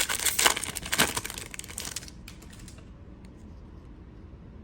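A pack of trading cards being opened and handled: a dense run of crinkling and clicking from the wrapper and cards that stops about two seconds in, followed by a few faint ticks.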